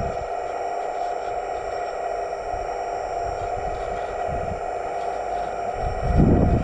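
Hydraulic drive of 1/15-scale RC construction models running with a steady whine. A few low thumps come through, the loudest just before the end.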